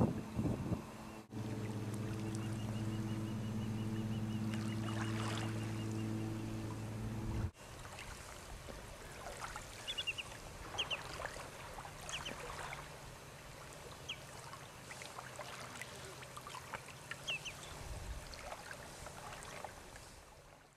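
A steady low hum with several tones for about six seconds, cutting off abruptly; then small waves lapping on a pebble shore, with short high bird calls now and then.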